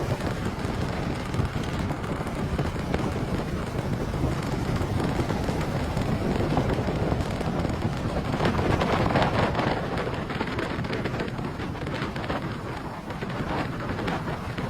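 Car driving through heavy rain and strong wind: a steady rumble of road and wind noise, with a louder spell of crackling spatter about halfway through.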